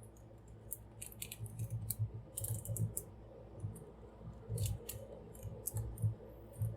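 Plastic parts of a large toy figure being handled, giving scattered small clicks and light knocks.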